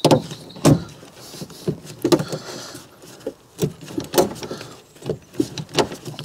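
Hand blind rivet gun (pop rivet gun) being squeezed stroke after stroke on a rivet in the car's sheet-metal body panel, giving a series of sharp, irregular clicks and clacks about every half second. The gun is still pulling the mandrel; the rivet has not yet popped.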